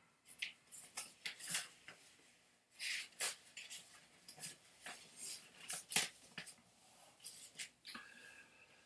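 Paper rustling as the pages of a booklet are handled and turned, in a series of short, irregular rustles and soft clicks.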